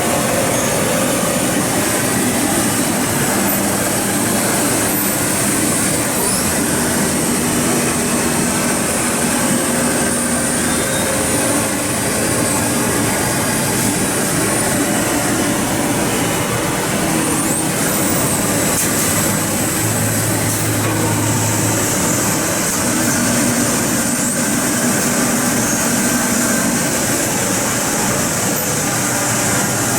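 Gildemeister Speed 12-7 Linear Swiss-type CNC sliding-headstock lathe running: a steady loud hiss with whining tones from the spindles and axis drives that come and go and change pitch as it works through a machining cycle.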